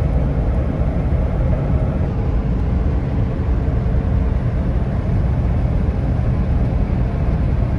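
Steady road and engine noise inside the cabin of a vehicle driving along a sealed highway: a continuous low rumble.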